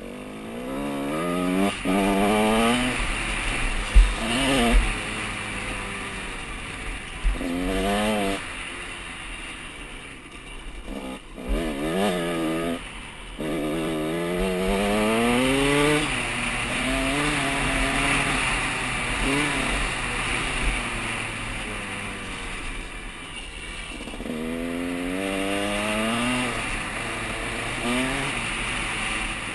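KTM 150 SX two-stroke single-cylinder dirt bike engine, heard from an on-board camera. It revs up through the gears again and again, its pitch climbing on each pull and dropping at each shift, over a steady rush of wind on the microphone. A couple of sharp low thumps come about four seconds in.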